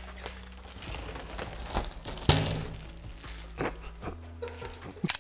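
Blue protective plastic film being peeled off the glass and panels of a 3D printer enclosure, crackling and crinkling unevenly, with a sharper rip about two seconds in. Background music with steady low notes plays underneath.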